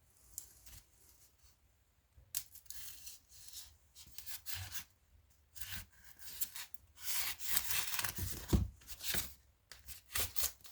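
Packaging being torn open and rustled by hand: a quiet start, then a run of irregular tearing and rubbing strokes, busiest in the second half.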